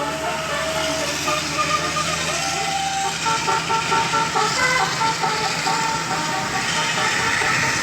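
A bus's musical Basuri 'telolet' air horn playing a tune of short notes that step up and down in pitch, over a steady low engine hum.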